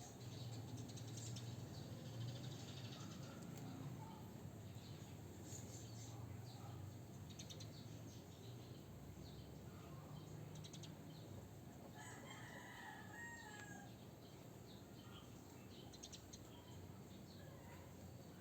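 A rooster crowing once in the background, about twelve seconds in, over a low hum and faint scattered taps and rubbing from a screen protector being smoothed onto a tablet.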